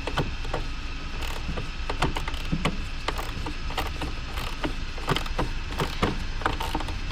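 Small ratchet and 10 mm socket working the battery hold-down bolts: scattered, irregular metal clicks and knocks over a steady low background rumble.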